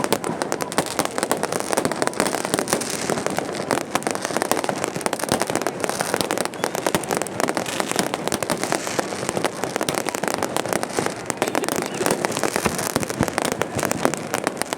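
Many fireworks and firecrackers going off at once: a dense, continuous crackle of overlapping bangs without a pause.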